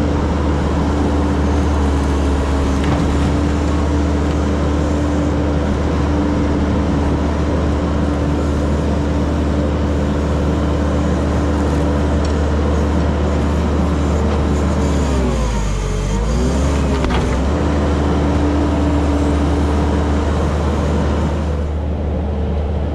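Tractor loader engine running steadily under work. About fifteen seconds in its pitch sags and then climbs back, as the engine lugs under load and recovers.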